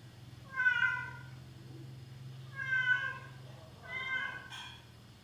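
Domestic cat meowing three times, short calls spaced about one and a half seconds apart, with a brief click just after the third.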